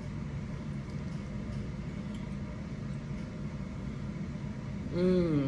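A steady low hum, then about five seconds in a woman's short 'mmm' of approval, its pitch rising then falling, as she tastes a forkful of pasta.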